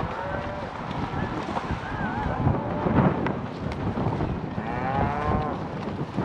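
Cattle mooing several times, with a long drawn-out moo about five seconds in, over wind buffeting the microphone.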